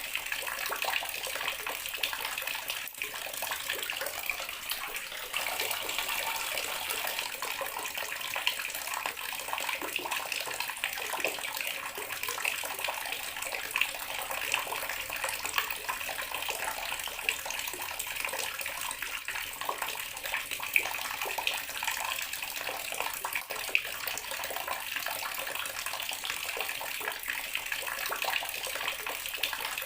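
Bathroom water tap running steadily, the stream splashing into a basin or tub with small irregular splashes.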